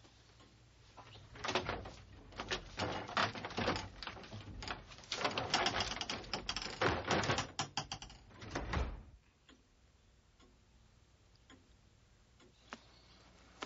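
A quick, irregular run of clicks and knocks lasting about seven seconds, starting a second or so in and stopping abruptly; then faint background with one more click near the end.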